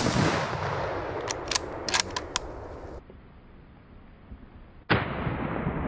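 Hunting rifle shot that rings and rumbles away over about three seconds, followed by a few sharp clicks. About five seconds in, a second rifle shot goes off and rings away the same way.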